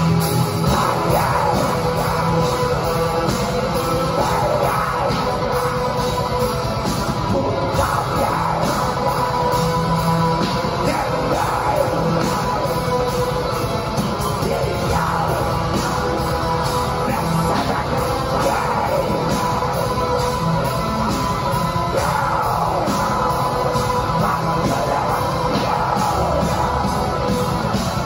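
Heavy metal band playing live through a club PA: distorted electric guitars and bass over fast, dense drumming, with shouted vocals.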